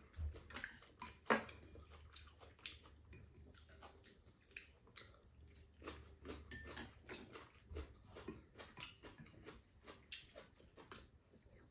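Two people eating curry soft tofu stew: faint chewing, with many short clicks of spoons tapping and scraping against the bowls.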